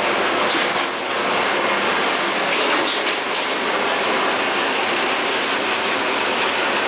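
Paper sheet-feeding machine running, with a steady, even mechanical noise as its rollers deliver sheets onto a stack.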